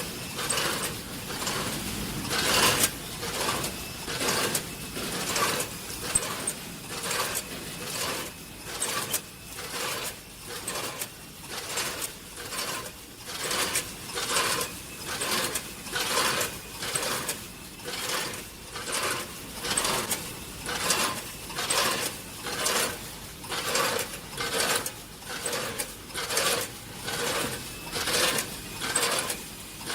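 Snack packing machine with a combination weigher running, its mechanical cycle repeating evenly about once a second.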